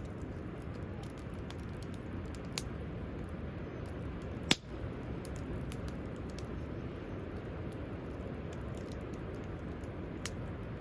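Wood campfire crackling, with scattered sharp pops, the loudest one about halfway through, over a steady low rush.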